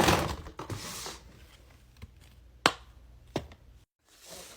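Small fidget toys being rummaged through and handled: a rustle at the start, then two sharp clicks a little under a second apart past the middle.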